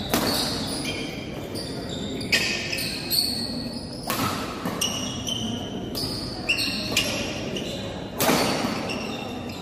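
Badminton rally: a string of sharp racket strikes on the shuttlecock, some under a second apart, with a hard overhead smash about four seconds in. Short high squeaks of court shoes come between the hits.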